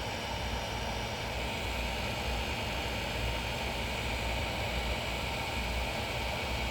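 Dual fans of a soldering fume extractor running steadily: a constant airy whir with a faint steady high whine.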